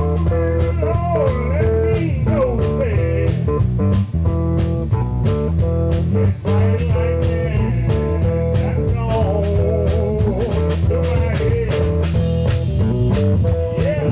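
Live electric blues band in the North Mississippi hill country style: electric guitar playing lead lines with bent notes over bass and a drum kit keeping a steady beat.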